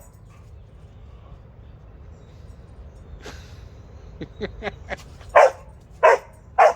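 Blue heeler barking in alarm at a jack-o'-lantern lamp it is scared of. A few quick, quieter yips lead into three loud, short barks about half a second apart near the end.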